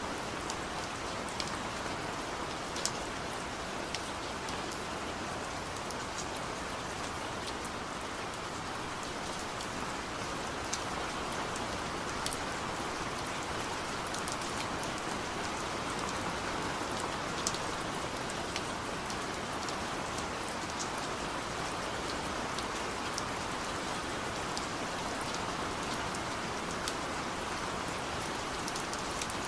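Steady rain falling, a continuous hiss with scattered sharp drips and drop ticks.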